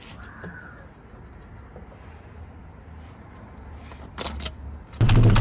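Faint background noise with a few light clicks about four seconds in, then near the end a loud, steady low hum cuts in suddenly.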